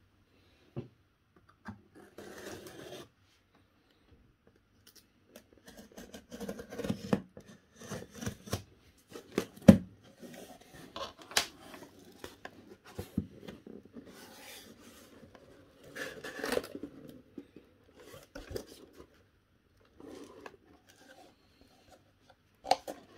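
Packing tape on a sealed cardboard case being cut with a blade and the cardboard flaps pulled open: stop-start scraping, tearing and rustling of cardboard with small clicks, and one sharp snap about ten seconds in.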